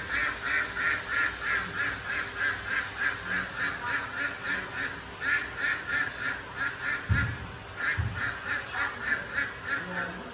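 A rapid, regular series of short high calls, about four or five a second, in several runs broken by short pauses, with a couple of low thumps near the middle.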